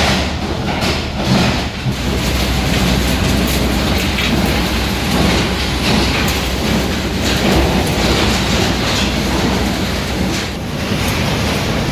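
Wire chopping machine (granulator) running and chopping automotive wire harnesses: steady dense rattling and clatter over a low hum.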